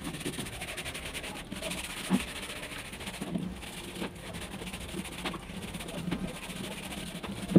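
Tap water running steadily onto plastic chick drinkers and feeders as they are rinsed by hand, with scattered knocks of plastic being handled and a sharp clack near the end.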